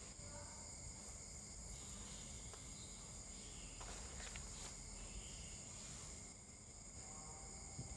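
Faint, steady background hiss with a high-pitched whine running under it: the recording's own noise in a gap without speech.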